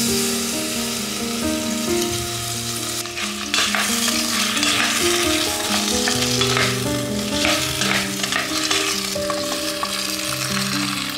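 Sliced onions sizzling as they fry in beef dripping in a stainless steel pot, stirred with a wooden spoon that scrapes now and then, over background music.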